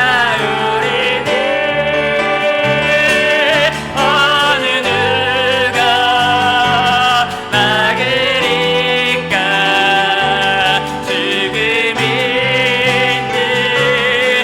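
Live worship band music: piano and bass under a sung melody with long, wavering held notes.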